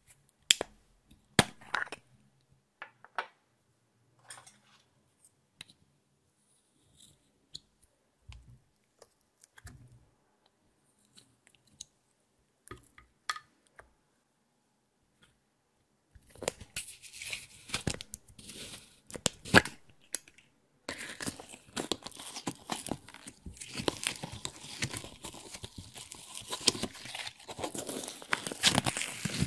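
Slime being handled and squeezed out of small plastic containers. First there are scattered soft clicks and small squishes. From about sixteen seconds in, a dense, continuous crackling and squelching sets in.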